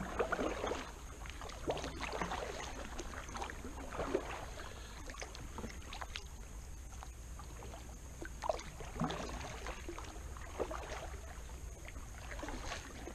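Kayak paddle strokes: the blades dip and swish through calm water, with splashes and drips at uneven intervals.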